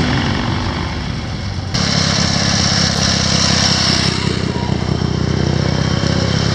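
Antique motorcycle engines running as the bikes ride by close at low speed, a steady low engine note. The sound changes abruptly about two seconds in, with more hiss above the engine.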